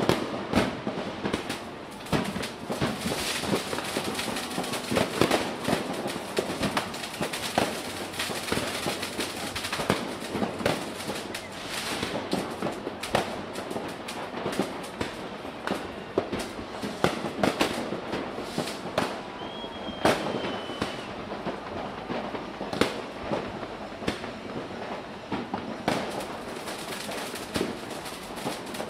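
Fireworks and firecrackers going off without a break: dense, irregular bangs and crackles, with a brief high whistle about two-thirds of the way through.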